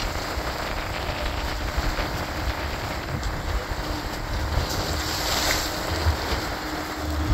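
Honda outboard motor running steadily as the boat moves through the sea, with the wake churning and wind buffeting the microphone.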